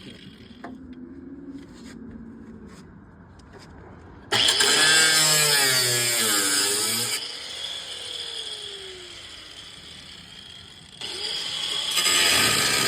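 Electric cutting tool biting into the car's trunk sheet metal. It starts abruptly about four seconds in, its pitch sags and recovers under load, and it winds down with a falling whine. It starts up again near the end.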